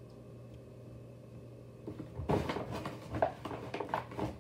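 Rustling and knocking of objects being handled, starting about two seconds in: a hand rummaging off to the side for the next squishy toy. A steady low hum runs underneath.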